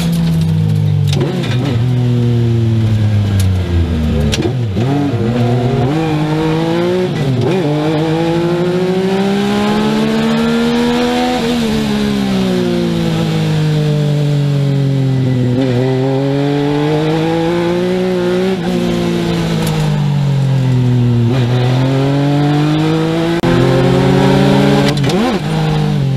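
A Legends race car's Yamaha four-cylinder motorcycle engine, heard from inside the cockpit at full load. Its pitch climbs under acceleration and drops back as the driver lifts off, several times over.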